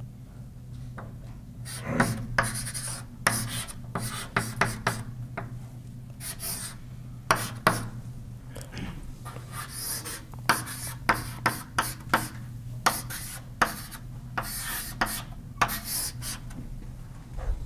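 Writing on a lecture board: irregular taps and short scratchy strokes as an equation is written out, over a steady low hum.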